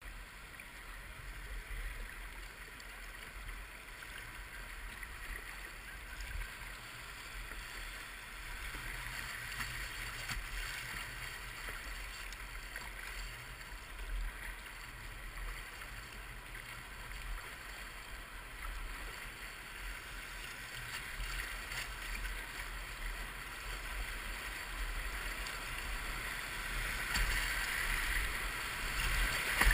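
Rushing river water of a whitewater rapid, a steady hiss that grows gradually louder toward the end, with a low rumble underneath.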